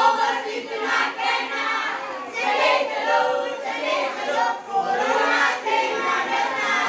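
A group of schoolchildren singing together.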